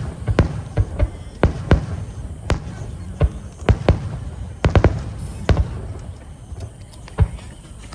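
Aerial fireworks going off in irregular succession: sharp bangs, one or two a second, over a low rumble, thinning out in the last few seconds.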